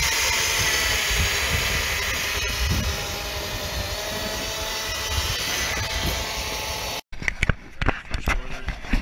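Cordless reciprocating saw running steadily as its blade cuts through thin ice about two inches thick, a motor whine over the rasp of the blade that stops abruptly about seven seconds in. A few short sharp knocks follow.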